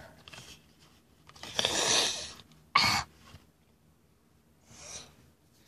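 A person's breathy noises close to the microphone: a longer exhale about one and a half seconds in, a short sharp burst of breath near three seconds, and a faint breath near the end.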